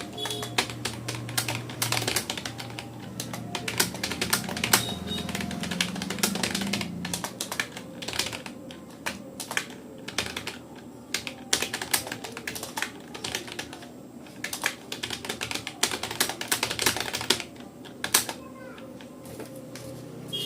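Fast touch typing on a Rapoo computer keyboard: a rapid, irregular run of keystroke clicks, with a short pause about three quarters of the way through.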